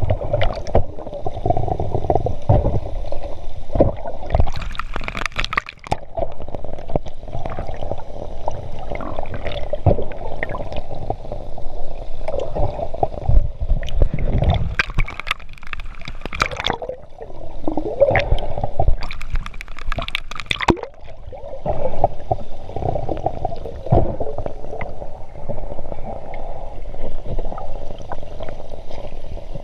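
Muffled underwater gurgling and bubbling picked up by a submerged camera, with several louder bursts of bubbles and knocks.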